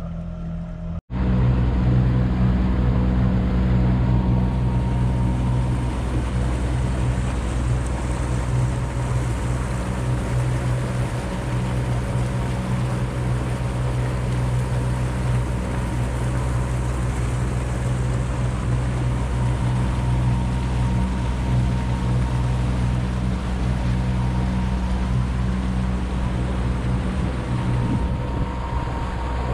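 Motorboat engine running steadily underway, with a rush of water and wind noise over it; it starts abruptly after a brief cut-out about a second in.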